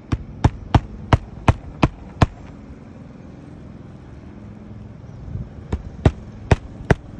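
Hammer blows on asphalt roof shingles: a quick run of seven sharp strikes, about three a second, then a pause and four more near the end.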